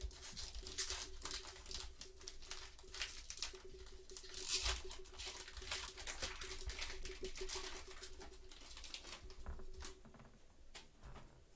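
Gypsy Queen baseball card pack wrapper torn open and crinkled by gloved hands, loudest about four and a half seconds in. Around it are the rustle and flick of the cards being handled.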